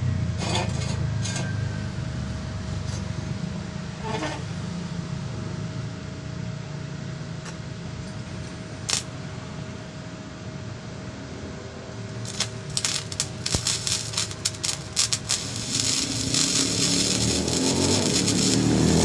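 Steady low hum with a few sharp clicks. About twelve seconds in, irregular crackling starts and thickens into a continuous sizzling crackle: a flux-cored MIG weld being run with 0.9 mm wire.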